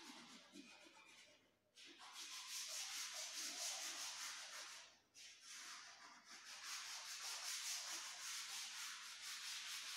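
Chalk rubbed back and forth on a chalkboard to shade in an area: a steady scratchy rasp of quick strokes. It breaks off briefly just before two seconds in and again about five seconds in.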